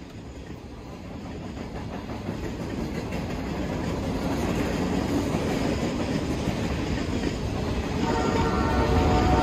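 Covered hopper cars of a CN grain train rolling past over the crossing: a steady wheel-on-rail rumble with clickety-clack that grows louder. A steady ringing tone joins about eight seconds in.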